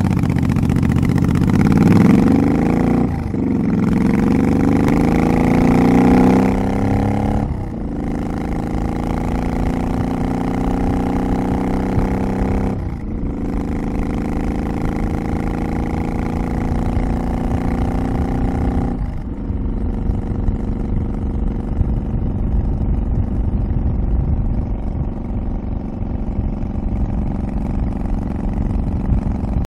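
Suzuki Boulevard C50's V-twin running through Cobra Streetrod slip-on exhausts, heard close to the back of the bike, pulling up through the gears. The pitch climbs, then drops sharply at each of three upshifts a few seconds apart. About two-thirds of the way through the throttle closes and the engine runs on low and lumpy.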